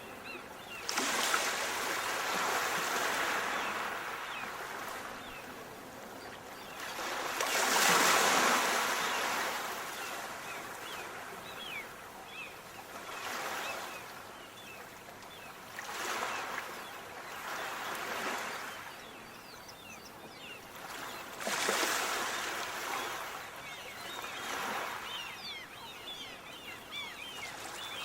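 Sea waves washing in and drawing back, a rush of surf swelling and fading every few seconds, the biggest about eight seconds in.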